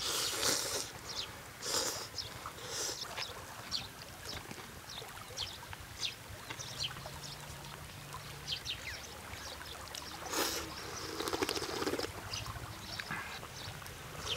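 A person eating noodle soup: loud slurps of noodles at the start and again around ten to twelve seconds in, with wet chewing and small mouth clicks between. Running river water is a steady wash underneath.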